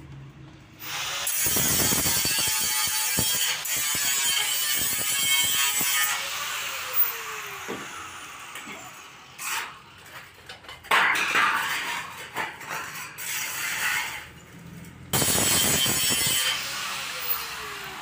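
Long steel bandsaw blades being handled and flexed, rattling and scraping with a harsh metallic noise in three loud stretches, with clicks between.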